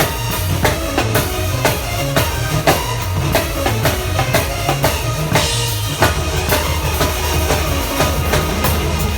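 Band music from a sound check: a drum kit keeps a steady beat of about three hits a second under keyboard playing from the PianoArc wraparound keyboard. A little past five seconds a cymbal wash swells, and after it a steadier low bass line carries on.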